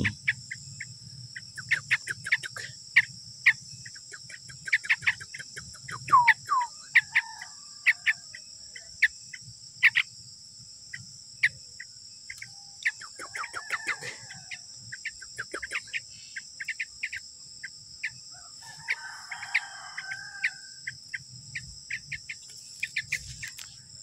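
Steady high-pitched drone of insects with many short, sharp bird chirps scattered through it, and twice in the middle a rougher, lower bird call.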